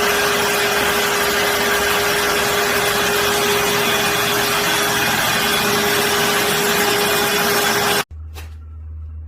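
A motor-driven machine running steadily, with a loud rushing noise and a steady whine. It cuts off suddenly about eight seconds in, leaving a low hum with two short clicks.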